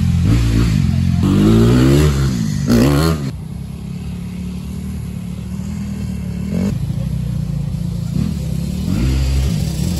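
Dirt bike engine revved up and down several times, then running steadily with a few short blips of the throttle.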